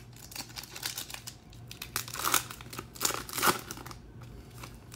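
Foil wrapper of a Topps Chrome trading card pack being torn open and crinkled by hand, the crackling loudest in two spells past the middle and dying down near the end.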